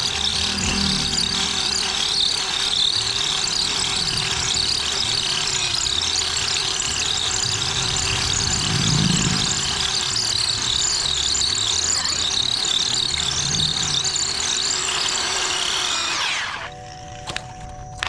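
A power tool running continuously with a steady high-pitched whine, stopping suddenly about 16 seconds in.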